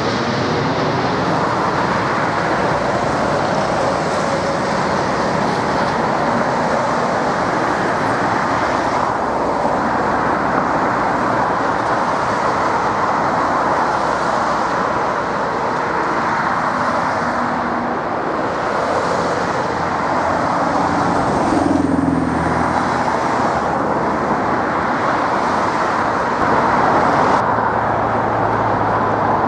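Rolls-Royce Trent 1000 engines of a British Airways Boeing 787 climbing away after takeoff, a loud steady jet roar. The sound changes abruptly near the end.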